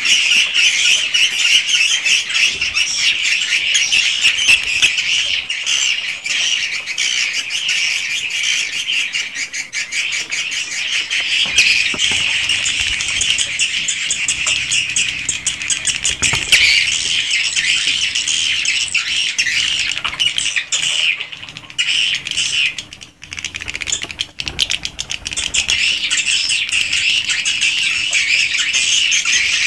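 A flock of swiftlets inside a swiftlet house, a dense, continuous twittering chatter of many birds calling at once, thinning briefly about two-thirds of the way through before filling in again. A faint steady hum sits beneath from about a third of the way in.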